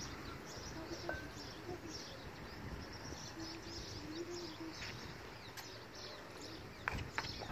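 Birds chirping with many short, high notes throughout, with a few faint low held calls in between. A couple of sharp clicks come near the end.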